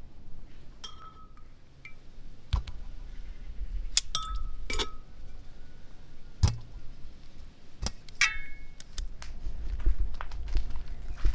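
Metal cookware and utensils clinking: about eight sharp strikes, some ringing briefly, as potatoes and tools knock against a metal pot and a perforated tray. Near the end come duller low knocks as an iron rack is handled over the fire pit.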